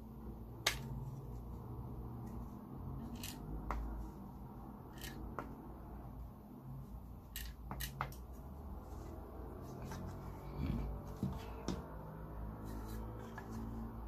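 Hard plastic parts of a dismantled Dyson V6 cyclone assembly being handled and set down on a workbench: scattered sharp clicks and knocks over a low background hum.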